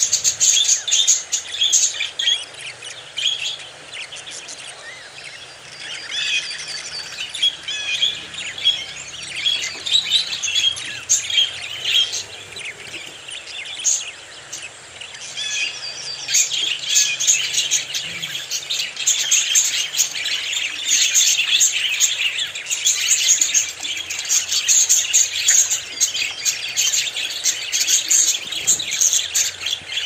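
Budgerigars chattering and warbling in a dense, continuous stream of short chirps. It eases off twice in the first half and grows busier over the second half.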